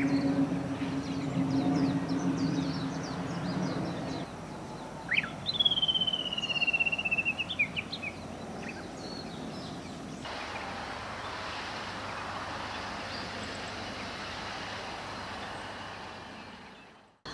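Outdoor ambience in three parts. First a steady low hum, then a bird's long whistled call that slides slowly down in pitch with a few short chirps, then an even hiss that fades out near the end.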